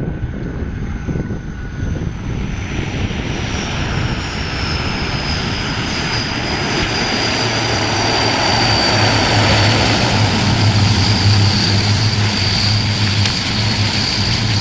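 Aircraft engine growing louder as the plane comes closer, with a high whine that slowly falls in pitch and a low drone that strengthens in the second half.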